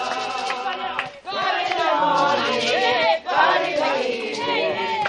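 A group of mourners singing a gospel hymn together, many voices at once, with brief breaks in the singing about a second in and again about three seconds in.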